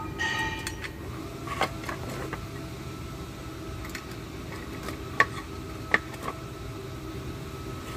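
Steel brake parts being handled during a drum-brake shoe and return-spring fitting: a short metallic ring near the start, then scattered sharp clicks and clinks, the two loudest a little past the middle. A steady fan-like hum runs underneath.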